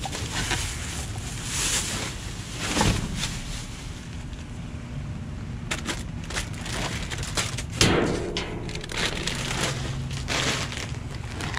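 Plastic trash bags rustling and crinkling as a hand rummages through a dumpster, with a few sharp knocks, the loudest about eight seconds in.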